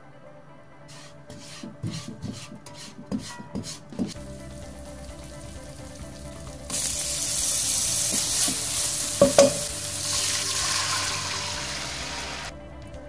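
Korean chili powder (gochugaru) frying in cooking oil in a nonstick pan. A utensil knocks and scrapes against the pan several times as it is stirred, then a loud steady sizzle sets in about seven seconds in, with two sharp clacks near nine seconds. The sizzle cuts off near the end.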